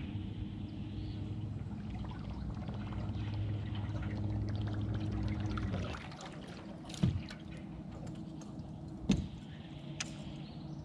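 Electric trolling motor humming steadily with water churning, cut off about six seconds in, followed by two sharp knocks.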